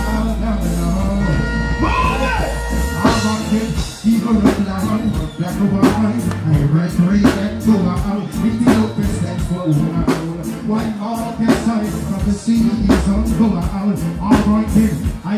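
Live reggae music played loud through a festival stage sound system, a male vocalist singing into a microphone over bass and drums. A held bass gives way about three and a half seconds in to a steady drum beat.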